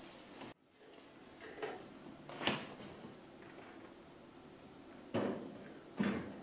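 A heavy metal-cased electric fireplace insert being lifted and slid into a wall opening framed in wood: a sharp knock about two and a half seconds in, then two heavier bumps near the end as the case meets the framing.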